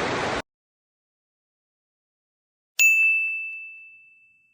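Rushing water noise that cuts off abruptly, then about two seconds of silence, then a single bright bell-like ding that rings and fades away.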